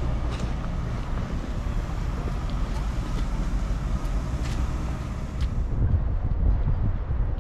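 Steady low rumble of a vehicle with wind noise on the microphone, a few faint clicks over it; the high hiss drops away about six seconds in.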